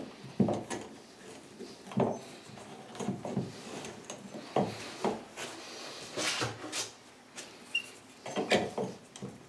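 A hand pipe cutter being turned around a 15 mm copper pipe, giving irregular clicks, knocks and scrapes of metal on metal.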